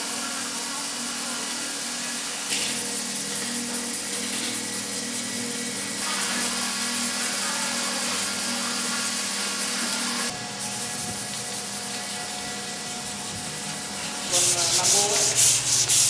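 Sandpaper rubbed by hand over a smooth, curved wooden car-body panel, a steady scratchy back-and-forth rubbing. It gets louder near the end.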